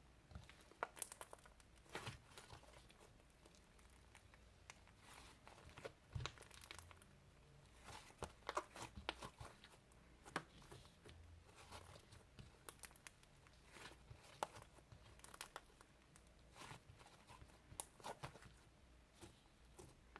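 Faint crinkling and tearing sounds mixed with scattered light clicks and taps, irregular and short, from things being handled by hand.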